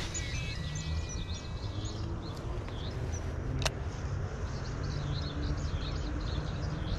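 Riverside ambience: a steady low rumble with birds chirping throughout, and a single sharp click about three and a half seconds in.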